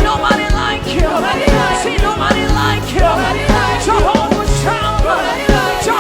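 Upbeat live band praise music with a steady drum beat, about two beats a second.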